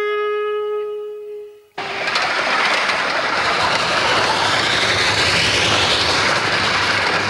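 A held woodwind note of continuity music fades out. It is followed abruptly by the loud, steady hiss of a Ffestiniog Railway narrow-gauge steam locomotive working, all steam and exhaust noise.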